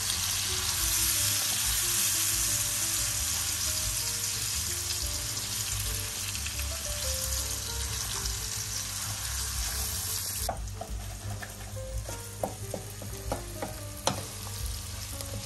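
Minced meat sizzling as it fries in a pan, stirred and broken up with a utensil. The sizzle drops off sharply about ten seconds in, after which taps and scrapes of the utensil against the pan stand out. Faint background music.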